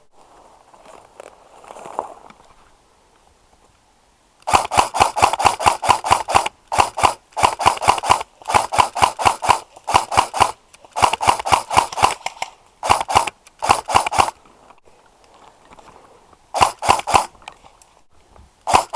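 Airsoft electric rifle firing in bursts of rapid, evenly spaced shots, several a second. There are long strings of shots with short pauses, then two shorter bursts near the end. It is loud and close, as if fired right at the microphone.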